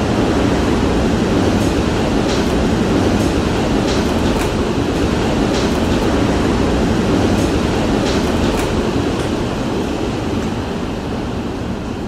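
Hurricane wind heard from inside a house: a loud, steady rumble of gusting wind, with scattered light ticks of debris striking the house.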